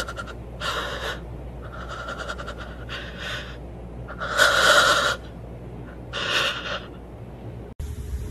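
A woman's breathy puffs and gasps: about five separate rushes of breath, the loudest about halfway through.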